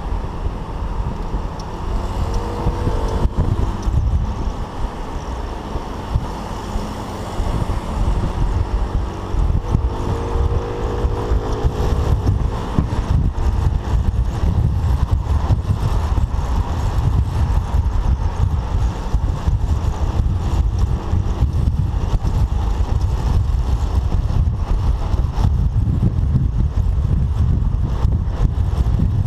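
Wind buffeting the microphone of a chest-mounted camera on a moving Citycom maxi-scooter, a steady low rumble, with the scooter's engine and road and traffic noise underneath. A faint hum comes and goes a few times.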